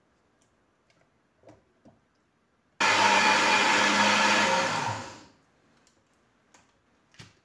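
Countertop blender motor switched on in one short burst of about two and a half seconds, blending a thick coconut cake batter, then spinning down. A few faint knocks from handling the jug come before and after.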